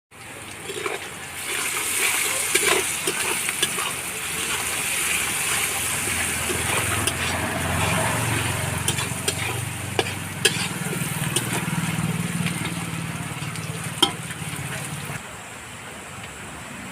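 Food sizzling as it fries in a pan, with scattered sharp clicks from stirring. A low hum joins in midway, and the sound drops to a quieter hiss near the end.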